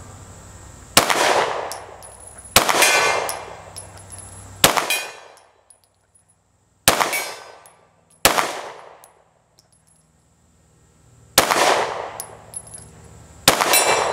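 Seven slow, deliberate 9mm pistol shots from a Glock 19 in a Recover Tactical P-IX chassis, spaced one to three seconds apart. Each shot is followed by a long ringing tail, the big steel gong at 50 yards ringing from the hits.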